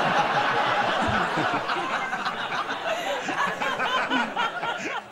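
Studio audience laughing at a punchline, loudest at first and dying down toward the end.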